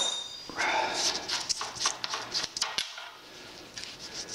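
Metal clinking and rattling from a box spanner working a motorcycle's swing-arm bolt loose: a sharp ringing clink at the start, then a quick run of rattles and clicks, with a few more clicks near the end.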